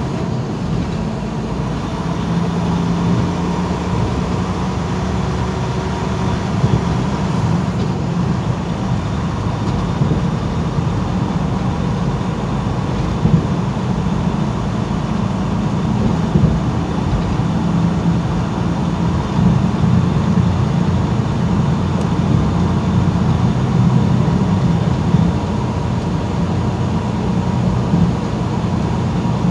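Semi truck's diesel engine and tyres making a steady drone, heard from inside the cab while cruising on the highway, with a few light knocks along the way.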